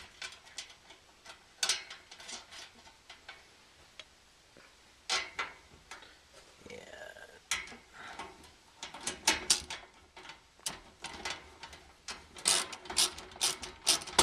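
Metal hardware clicking and clinking as bolts and nuts are fitted by hand to fasten a metal cargo barrier's wings to its lower mounts. The clicks come irregularly, then crowd together and get louder in the last five seconds.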